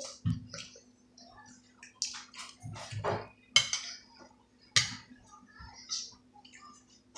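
Cutlery clinking and tapping against plates and food containers at a meal: an irregular string of short clicks and knocks with quiet gaps between.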